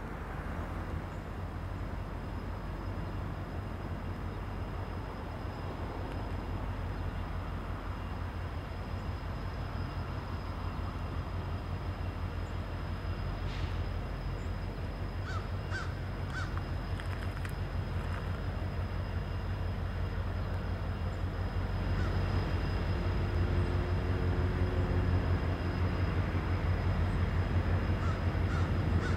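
Diesel freight locomotive running under power as an intermodal train approaches, a low rumble that grows steadily louder as it nears. A crow caws a few times about halfway through.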